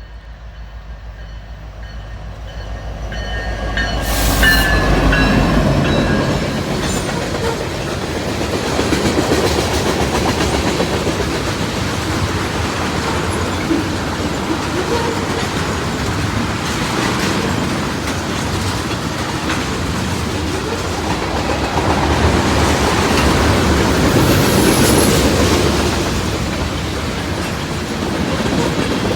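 A train approaching and passing close, getting louder over the first four seconds, then a steady rumble and clatter of wheels over the rail joints. A horn chord sounds in the first few seconds and fades out.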